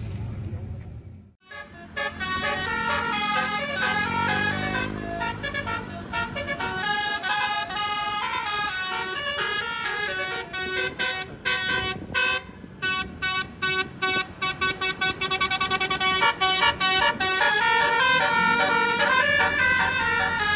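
Multi-tone "telolet" air horn on a tour bus playing a melody, its notes changing several times a second, then breaking into quick staccato toots in the second half.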